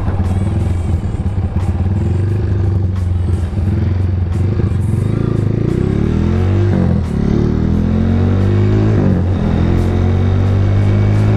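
Motorcycle engine revved hard under way: a steady run at first, then in the second half the revs climb and drop back sharply about three times.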